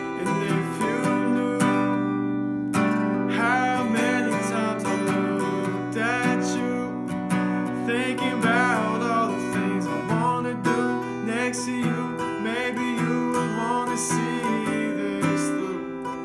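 Acoustic guitar being strummed steadily, with a man singing a slow song over it.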